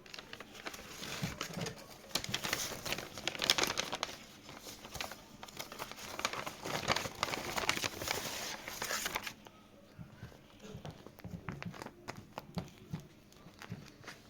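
Crinkly material being crumpled and handled, a dense crackling for about nine seconds, then sparser crackles and light taps.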